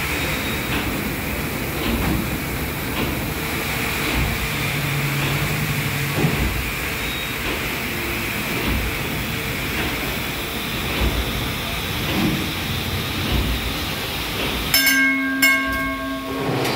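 The paddle steamer Waverley's three-cylinder triple-expansion steam engine running steadily, its pistons, cranks and rods turning the paddle wheels with a rhythmic mechanical beat. Near the end the sound changes briefly to a steady hum.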